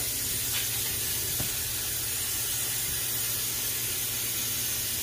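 Steady background hiss with a low hum underneath and no distinct event, apart from a faint tap about a second and a half in.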